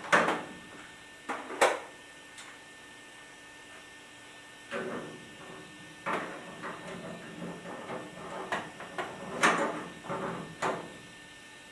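Irregular metallic knocks and clatter of tools and pipe fittings being handled while a gas line is connected to a water heater, with a few sharp strikes near the start and a busier run of knocks in the second half. A steady hum runs underneath.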